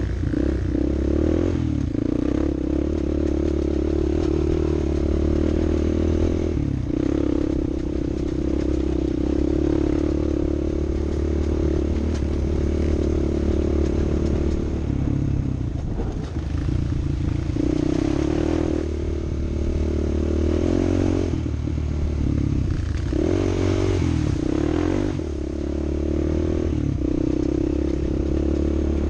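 An off-road vehicle's engine running continuously, its pitch rising and falling several times with the throttle, over a steady clattering rattle.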